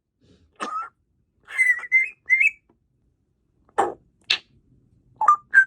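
African grey parrot whistling and chirping in short separate calls: a rising whistle, a run of three whistled notes about two seconds in, two short noisy bursts around four seconds, then quick chirps and a held whistle at the end.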